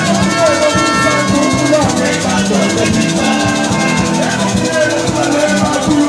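A group of women singing a hymn together, with percussion keeping a steady beat.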